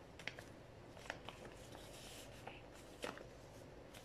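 Sheet of A4 paper being folded and creased by hand: faint rustling with a few short crackles, the loudest about three seconds in.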